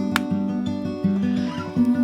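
Acoustic guitar music with a steady picked rhythm.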